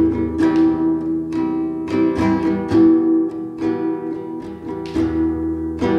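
Classical guitar played alone, a steady run of strummed chords at about three strokes a second, the strings ringing on between strokes.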